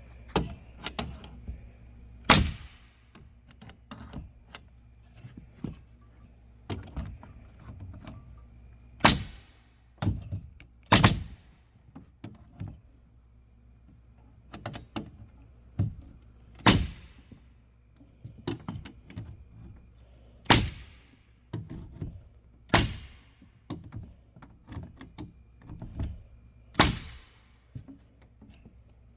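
Pneumatic palm nailer driving nails: about seven loud, sharp strikes a few seconds apart, with lighter taps and knocks in between.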